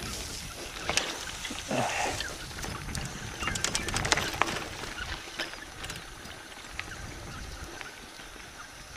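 Mountain bike rolling down a loose dirt and gravel track: tyres crunching over stones and the bike rattling with sharp clicks and knocks, over a steady rumble of wind on the microphone. The rattling is busiest in the first half.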